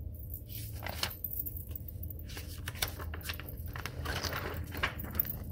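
A large spiral-bound flip-chart page being turned: paper rustling, with several light clicks and clinks, over a steady low hum.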